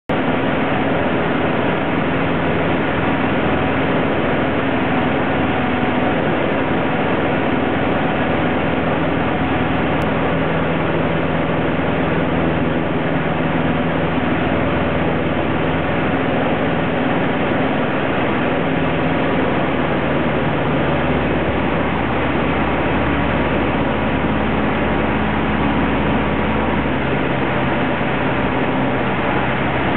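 Cessna 150L's Continental O-200 four-cylinder engine and propeller droning steadily, the engine note shifting slightly a few times, about midway and near the end.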